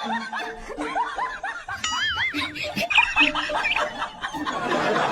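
Snickering laughter, a quick run of short high 'hee hee' laughs, with a wavering high tone about two seconds in.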